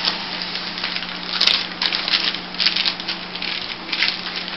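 Paper sheet crinkling and rustling in irregular rough crackles as it is pressed and rolled around a slab of soft bubble-bar dough to form a tight log, over a steady low hum.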